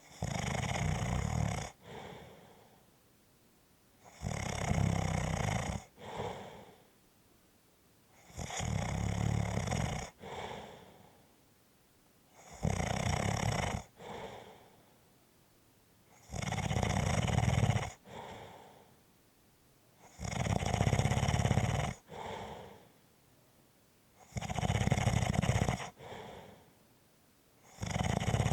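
Steady, rhythmic snoring, one breath about every four seconds: a loud snore about a second and a half long, then a shorter, softer breath, then a pause.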